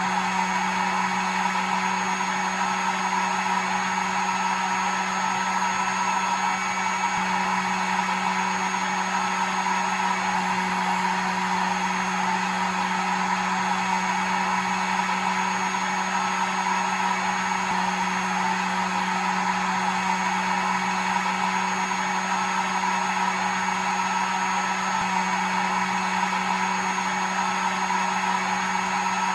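Hair dryer running steadily: an even rush of air over a constant motor hum and a thin high whine, with no change in speed.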